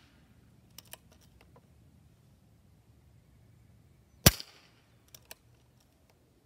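Diana Outlaw .22 PCP air rifle firing one shot about four seconds in: a sharp crack with a short ring-off. Pairs of soft clicks near the start and just after the shot are the side lever being worked to cycle the next pellet from the magazine.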